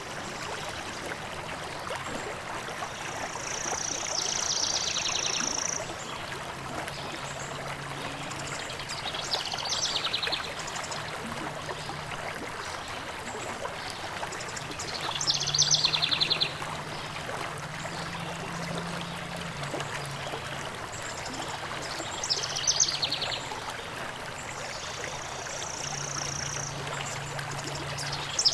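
Stream running with a steady rush of water, and a songbird repeating a short song about every six seconds: a high held whistle that breaks into a fast, falling trill.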